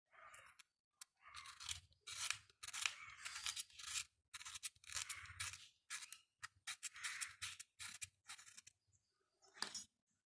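Aluminium foil crinkling and crackling in a string of short bursts as it is worked by hand, with soft handling knocks beneath.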